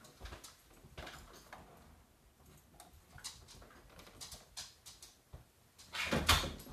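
Faint, scattered taps and knocks of a person moving about the house, with a louder burst of knocks near the end.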